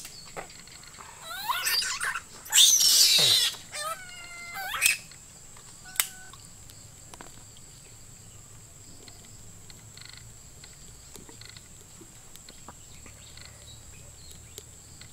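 Animal cries from cats facing off with a monkey: a rising call, then a loud harsh, hiss-like cry, then a wavering call, all within the first five seconds. A single sharp click follows, then only faint outdoor background.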